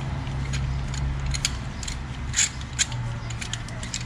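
Socket ratchet clicking in irregular runs of sharp ticks as a spark plug is worked out of the engine's cylinder head with a 14 mm socket on an extension. A steady low hum runs underneath.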